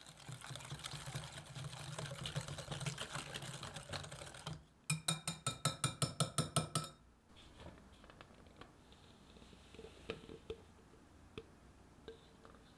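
Wire whisk beating a runny butter-and-sugar mixture in a glass bowl: a continuous rapid swishing and scraping for about four and a half seconds, then about ten quick rhythmic strokes that ring against the glass, about five a second. After that only a few faint small clicks.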